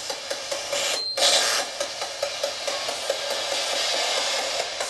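Spirit box radio sweeping through stations: a steady hiss of static chopped into short bursts several times a second, with a brief dropout and then a louder burst about a second in.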